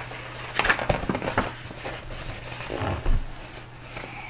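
Paper pages of a large picture book rustling as it is opened and handled, in a cluster of short rustles about a second in and another near three seconds.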